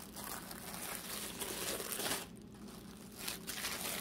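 Crinkling of a thin clear plastic wrapper as a packaged tote bag is handled and pulled at, with a short lull a little after halfway.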